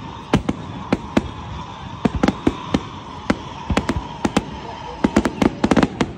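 Aerial fireworks display: shells bursting in a quick, irregular string of sharp bangs, thickening into a dense cluster near the end.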